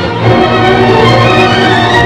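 Orchestral background music with strings.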